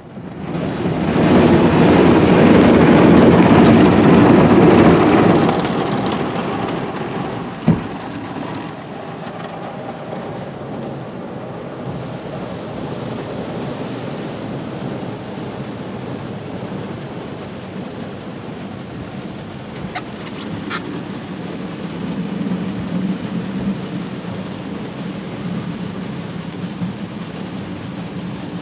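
Water spray and rotating brushes of a PDQ Tandem Surfline automatic car wash washing over the car, heard from inside the cabin like heavy rain on the body. Loudest for the first five seconds or so, then a steadier, quieter rush, with a single knock about eight seconds in.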